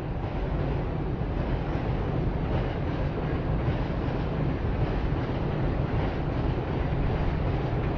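Steady low rumble of city noise, with wind buffeting the microphone.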